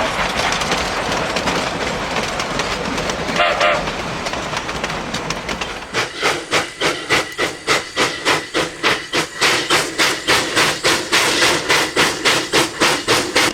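Narrow-gauge freight train rolling past, first as a steady rumble with a brief high squeal a few seconds in. From about six seconds in, the car wheels clack over the rail joints in an even rhythm of about three a second.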